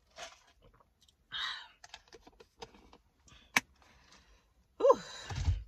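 Sips from a plastic cup of ice, with scattered clicks and rattles from the ice and the cup being handled. Near the end there is a short vocal sound falling in pitch, with a low thump.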